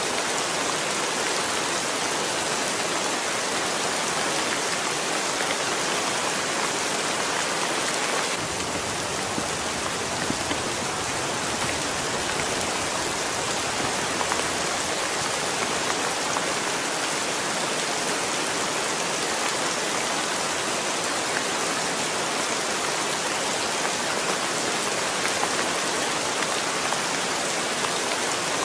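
Heavy rain falling steadily, a constant hiss of drops. About eight seconds in the sound gets a little deeper.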